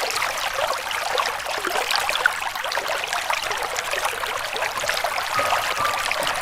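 River water running and trickling steadily, with many small splashes. A faint sustained musical tone comes in about five seconds in.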